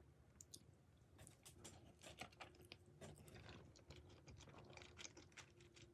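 A person chewing food close to the microphone: many small, irregular mouth clicks and smacks.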